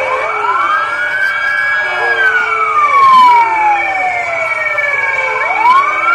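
Police vehicle siren in a slow wail. The pitch rises over a second or so, holds briefly, falls slowly for about three seconds and rises again near the end, with a steady high tone sounding alongside.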